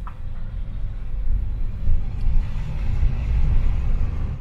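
Low rumble of a car's tyres and engine heard from inside the cabin while driving on a mountain road, growing louder after about a second.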